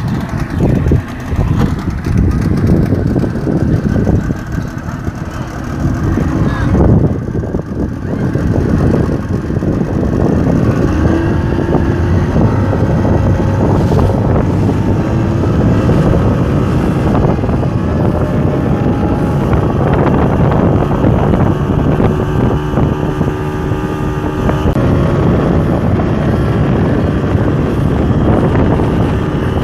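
Speedboat's outboard motor running under way while towing a banana boat, with wind buffeting the microphone; the level is uneven for the first several seconds, then holds steady.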